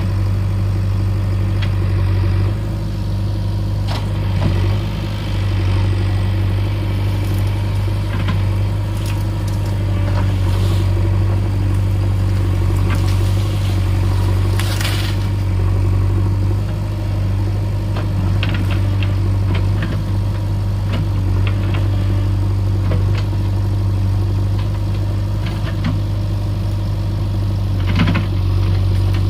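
JCB 3DX backhoe loader's diesel engine running steadily, with scattered short knocks and clatter from the machine working.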